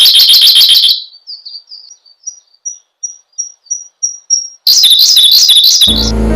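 Siberian blue robin singing: a fast, high trill, then a run of thin, high single notes about three a second, then another fast trill. Music comes in near the end.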